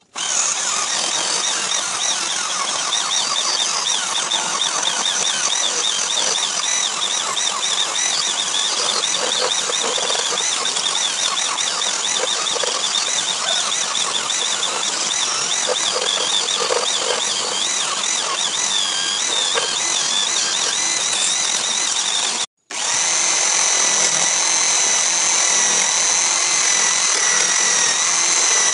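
Corded electric drill serving as the headstock of a homemade wood lathe, running steadily with a high motor whine that wavers as a chisel cuts the spinning wooden blank. The sound cuts out for a moment about three quarters of the way through, then resumes with a steadier whine.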